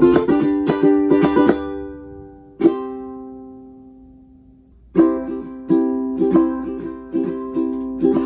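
Kala solid bamboo tenor ukulele strummed in chords. About two and a half seconds in, a single chord is struck and left to ring out and fade. Strumming picks up again about five seconds in.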